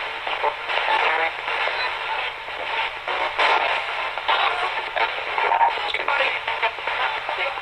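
Ghost box: a Radio Shack 20-125 radio sweeping the FM band, spitting out rapid, choppy snippets of broadcast voices and music between bursts of static, played through a guitar amp.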